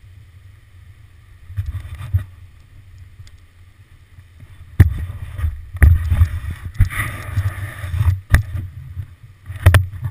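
Helmet-camera audio of a mountain bike riding down a rough dirt trail: a low wind rumble on the microphone, with sharp knocks and clatter from the bike hitting bumps starting about five seconds in.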